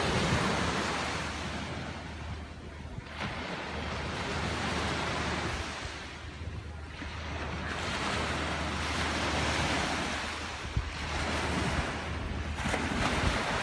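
Small waves breaking and washing up a sandy beach, the surf swelling and fading about every four seconds, with a steady rumble of wind on the microphone.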